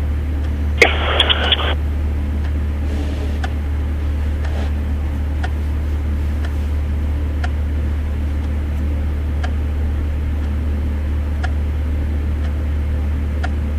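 A steady low hum. A short burst of radio static comes about a second in, and faint ticks follow roughly once a second.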